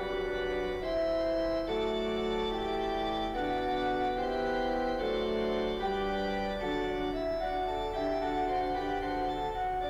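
Background instrumental music on an organ-like keyboard, playing a melody over held chords.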